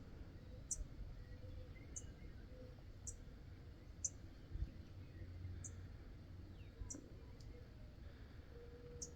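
Faint outdoor background with short, sharp, high-pitched clicks about once a second.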